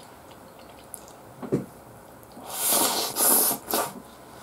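Close-miked eating sounds from a man eating omurice from a bento with a wooden spoon: a short soft knock, then three loud hissing mouth noises in quick succession about two and a half seconds in.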